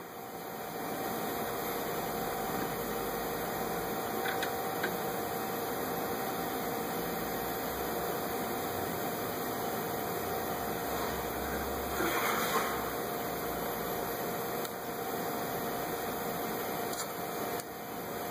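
Steady mechanical hum with a faint, even tone running through it, and a short rise in noise about twelve seconds in.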